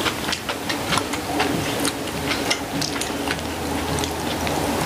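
People chewing close to the microphone, green onion kimchi among the food: an irregular run of small wet mouth clicks and smacks, several a second.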